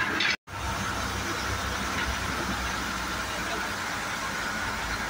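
MSRTC state-transport bus running on the road, heard from inside the cabin: a steady diesel engine drone with road noise and rattle. The sound drops out briefly just under half a second in.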